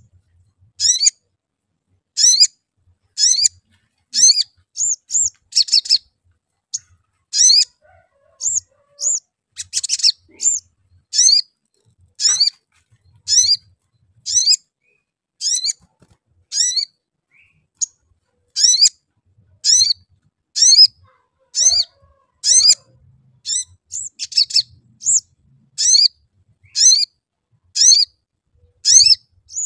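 Male olive-backed sunbird chirping: short, high "cuit cuit" calls, each a quick cluster of sweeping notes, repeated about once or twice a second in a steady run.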